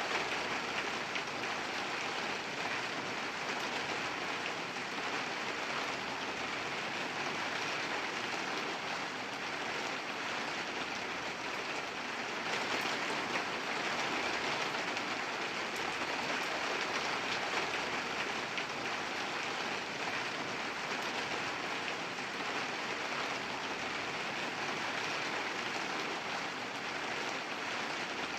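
Steady, moderate rain falling, a dense even patter of drops with no pauses.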